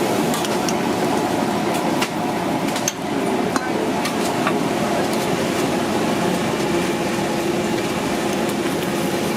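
Busy restaurant kitchen ambience: a steady hum with scattered sharp metal clicks and knocks.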